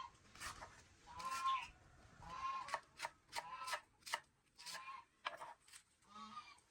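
Farm poultry calling repeatedly: a string of short, pitched squawking calls, irregularly spaced, with a few sharp clicking sounds in between.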